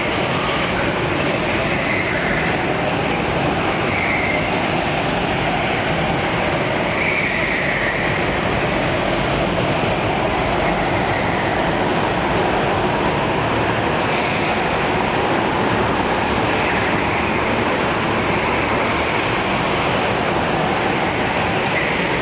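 A pack of go-karts racing, their small engines running together in a steady drone, with short tyre squeals every few seconds as they slide through the corners.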